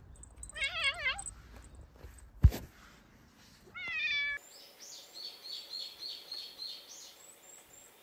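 A domestic cat meowing about a second in, a sharp knock that is the loudest sound, and a second short meow near four seconds. Then the sound cuts to a small bird singing a quick run of high repeated notes.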